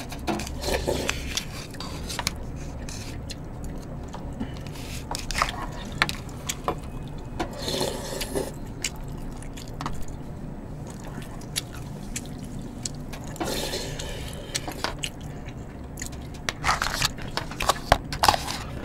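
Eating sounds: metal spoons clicking and scraping in plastic tubs of pork-bone soup, with slurping and chewing now and then, over a low steady hum.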